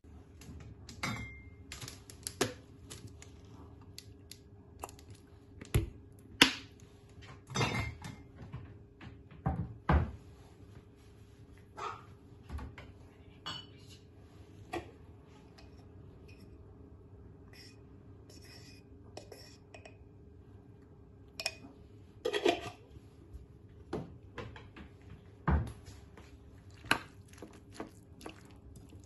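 Metal spoon clinking against a ceramic bowl and kitchen items knocked down on a countertop: scattered sharp clinks and knocks, sparser for several seconds in the middle.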